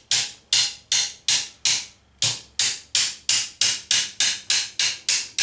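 Ball-peen hammer tapping a bent sheet-metal strip into place, about three light blows a second with one short pause about two seconds in. Each blow rings briefly.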